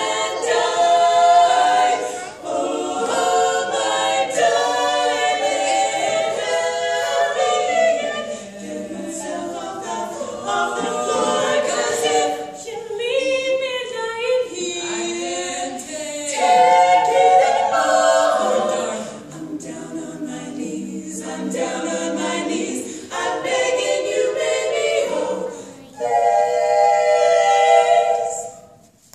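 Female a cappella vocal quartet singing in close harmony, four women's voices and no instruments. Near the end they hold a chord for a couple of seconds, then cut off sharply.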